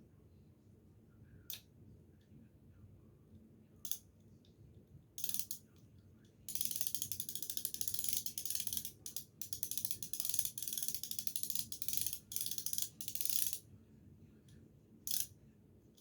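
Small ratchet handle from a compact socket set being worked, its pawl clicking fast in runs for about seven seconds, with a few separate clicks before and one after.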